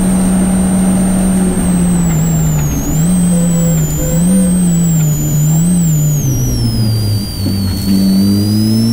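Peugeot 206 rally car's engine heard from inside the cabin, held at high revs, then the revs fall with a few short rises and dips as the car slows for a chicane, and climb again near the end as it accelerates. A high whine rises and falls with the revs.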